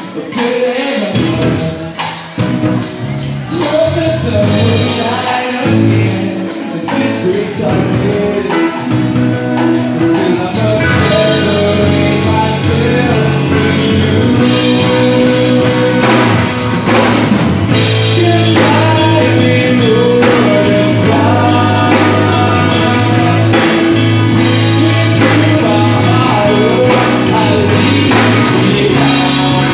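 Live rock band playing: electric guitars, bass guitar and drum kit, with a lead vocal singing over them. The playing is sparser and uneven at first, then fills out into a steady full-band sound about ten seconds in.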